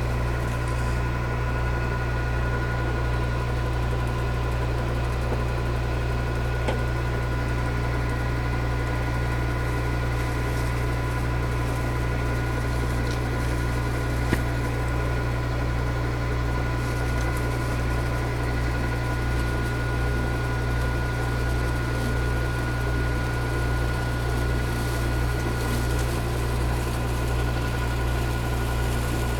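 Milling machine running steadily: a constant low motor hum with a steady whine from the spindle drive, taking a light cut in aluminium. One short sharp tick about halfway through.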